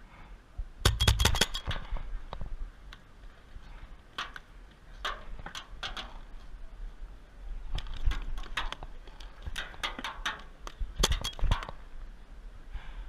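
Paintball markers firing in bursts of several quick shots, about six bursts in all, with gaps of a second or two between them.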